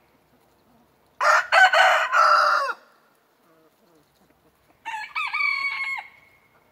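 Roosters crowing twice: a loud, rough crow about a second in, then a second, shorter crow near the end.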